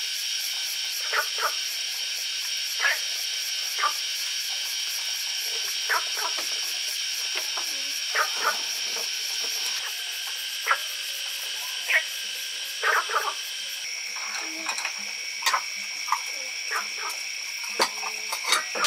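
Steady chorus of calling insects, a high-pitched pulsing drone that shifts in pitch about ten seconds in, with short sharp clicks or knocks every second or two.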